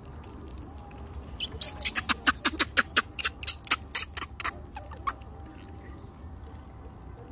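A quick run of about fifteen short, high-pitched squeaking chirps from a small animal, about four a second, starting over a second in and stopping about two seconds before the end.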